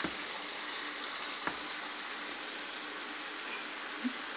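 Ground beef sizzling steadily in a copper-coloured nonstick frying pan over a hot burner, an even frying hiss. A few faint clicks of the spatula against the pan break in, about a second and a half in and again near the end.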